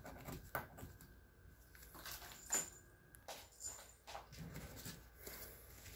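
Faint, scattered snips and clicks of a pair of scissors cutting through a paper pattern pinned to white satin, the loudest snip about halfway through.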